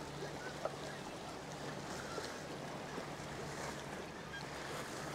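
Steady wash of the sea with wind, and a faint low hum underneath.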